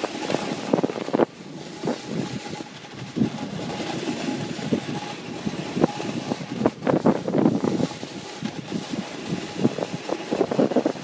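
Wind buffeting the microphone of a camera moving downhill on a ski run, rising and falling in gusts, mixed with the hiss and scrape of edges carving packed snow.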